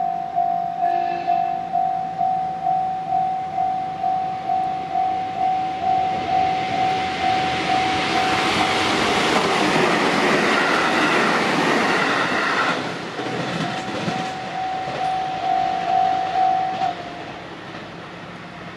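Japanese level-crossing electronic warning bell ringing about twice a second, with a short train horn about a second in. Midway a train passes with a loud rush of wheels and rail noise that drowns out the bell for several seconds; the bell then rings on and stops shortly before the end.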